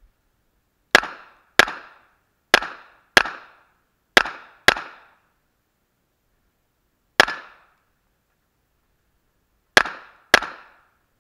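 Nine pistol shots, mostly fired as quick pairs about half a second apart, with one single shot between them. Each is a sharp crack with a short ringing tail.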